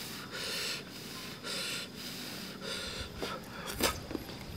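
A person breathing audibly in soft, even puffs about once a second, with a few faint clicks near the end.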